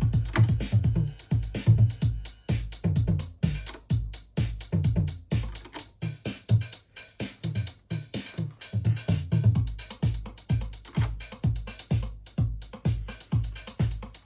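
DinSync RE-909, a recreation of the Roland TR-909 drum machine, playing a steady four-on-the-floor pattern. A kick drum hits about twice a second under ride cymbal and hi-hats.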